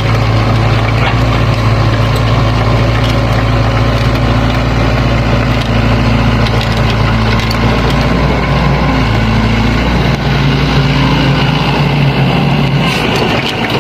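Sany hydraulic excavator's diesel engine running under working load, its note shifting as the hydraulics work and easing near the end, with scattered clicks and knocks.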